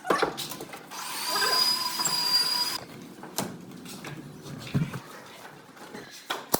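A small electric power tool runs with a steady whine for about two seconds, then stops; a few sharp knocks follow.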